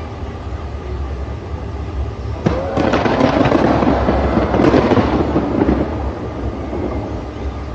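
Fireworks: a sharp bang about two and a half seconds in, then a dense crackling for about three seconds that fades out, over a steady low rumble.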